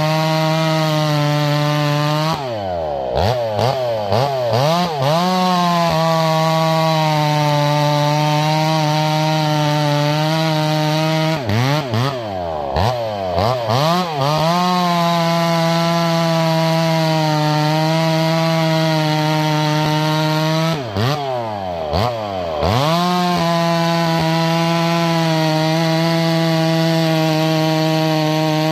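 Chainsaw bucking a log into firewood lengths, the engine held at a steady full-throttle note while cutting. Three times (about two seconds in, near the middle, and a few seconds later) the throttle is let off, the pitch drops, and the engine is revved up and down a few times before it settles back into the next cut.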